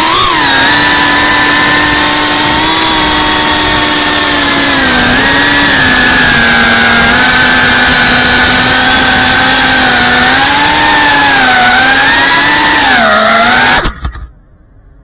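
Whoop FPV drone's brushless motors and propellers whining, the pitch rising and falling with the throttle. The whine cuts off suddenly near the end.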